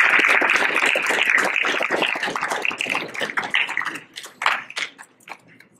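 Applause from a small crowd, dense at first and then thinning to a few scattered claps after about four seconds.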